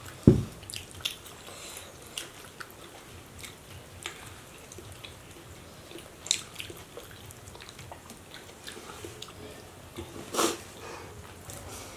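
Eating with the hands: fingers picking the flesh off a fried fish's bones and chewing, a run of small scattered clicks and smacks. A thump just after the start and a short louder noise near the end stand out.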